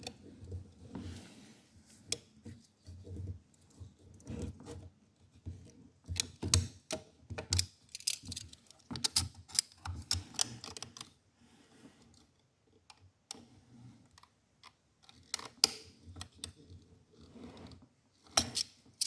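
Irregular clicks and short scrapes of a small knife blade working around the stuck right-click button of an HP 250 G7 laptop's touchpad, metal against plastic, with brief pauses between bouts.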